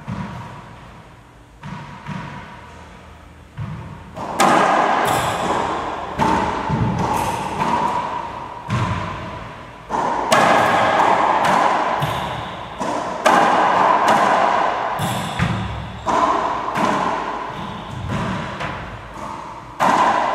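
Racquetball rally in an enclosed court: the ball cracks off racquets and walls, each hit followed by a booming echo. A couple of softer hits come first, then about one a second from about four seconds in.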